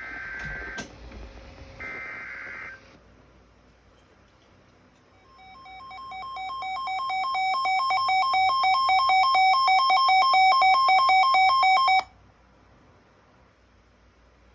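Emergency Alert System broadcast tones. Two short warbling digital data bursts of the kind that carry the alert header. After a pause, a steady two-tone attention signal swells in with a fast pulse, then cuts off suddenly.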